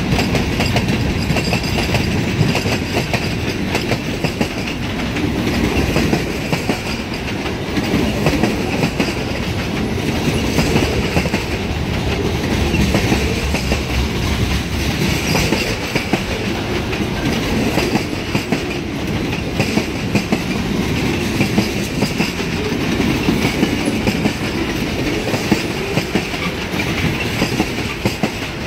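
Freight train cars rolling steadily past, a continuous rumble with the wheels clacking over rail joints. The cars are covered hoppers, centerbeam lumber flatcars and boxcars.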